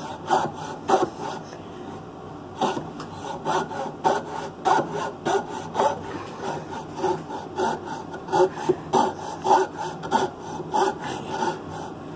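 Coping saw cutting through a pine block by hand: uneven rasping back-and-forth strokes, about two a second, with a short pause about a second in.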